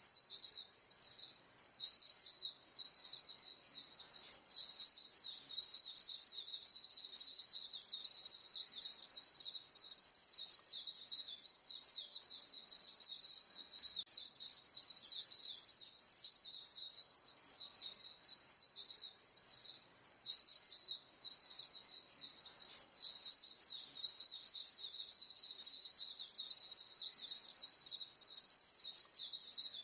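A flock of white-eyes calling to one another: a dense, unbroken stream of high, thin chirps, breaking off briefly twice.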